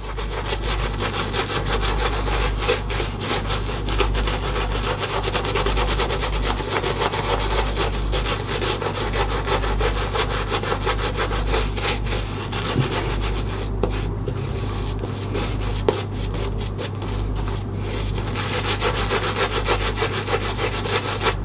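Synthetic shaving brush scrubbing soap lather on the face in rapid, continuous strokes, a wet brushy rubbing sound.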